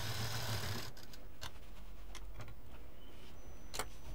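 Sewing machine stitching with a steady hum that stops about a second in, followed by a few scattered sharp clicks.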